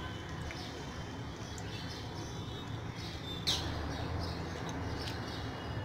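Steady low background hum and noise with faint high bird chirps, one sharper short falling chirp about three and a half seconds in.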